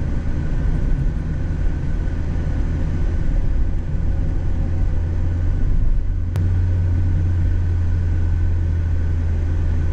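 Steady low engine and road rumble of a Mazda Roadster RF being driven. About six and a half seconds in there is one sharp click, and the low hum then steps slightly higher.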